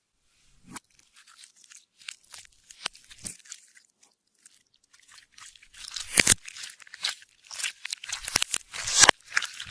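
Clear slime, with glitter and makeup mixed in, being squished and worked by hand: a dense run of sticky crackles and small pops, thickest and loudest about six seconds in and again near the end.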